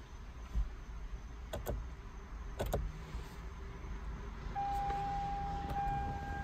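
Toyota Sienna engine being started with the push button: a few clicks about one and a half and two and a half seconds in, then the engine running. A steady high tone comes in about four and a half seconds in.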